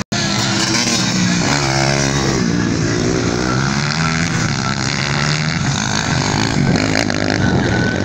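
Dirt bike engines revving up and down as riders race round the motocross track. The sound cuts out for an instant right at the start.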